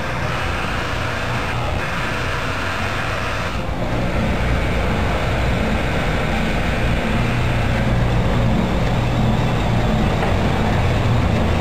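Industrial overlock sewing machine running steadily at speed, its motor humming under a continuous mechanical whirr; the higher part of the sound changes a few times as the sewing speed varies.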